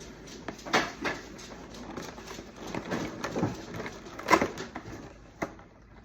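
A cardboard advent calendar being handled as one of its doors is pried open: a string of scattered clicks and knocks, the loudest about four seconds in.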